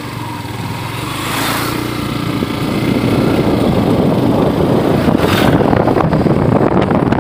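Motorcycle running at road speed while being ridden, its engine under a dense rushing noise that grows louder about three seconds in.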